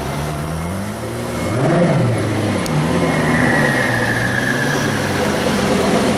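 Koenigsegg Agera's twin-turbo V8 running at low speed, its pitch rising and falling in a few short revs, the biggest about two seconds in.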